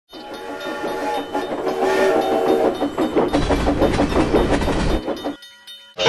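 Dubbed train sound effect: a long warning chord from a train whistle, changing pitch twice, then wheels clattering in an even rhythm over rail joints with a low rumble. It cuts off abruptly about five and a half seconds in.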